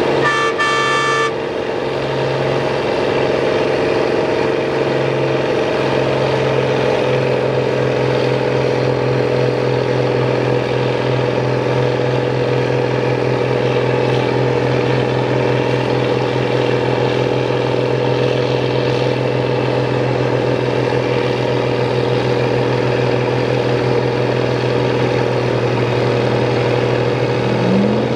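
An M35 army cargo truck and two Ford Power Stroke V8 turbodiesel pickups running hard and steady under load as they pull against each other in a tug of war. A brief high, horn-like tone sounds in the first second or so. Near the end, a lower engine tone rises and then holds.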